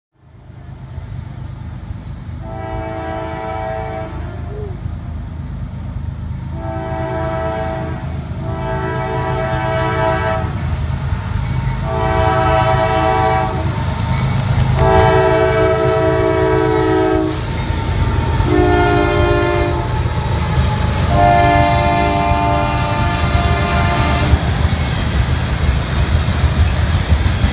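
Approaching diesel locomotive sounding its multi-note air horn in a series of long and short blasts, the pattern used for a grade crossing, over a low engine and rail rumble that grows louder as it nears.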